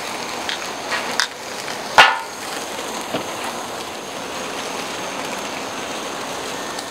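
Ribeye steaks sizzling over flaring charcoal on a kettle grill: a steady crackling hiss. A few small clicks come in the first second or so, and one sharp metallic clink rings out about two seconds in.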